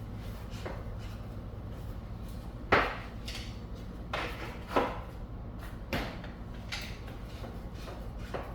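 Scattered knocks and clunks of a Savage 110 rifle being handled and set into a Tipton standing gun vise, about eight in all, the loudest about three seconds in.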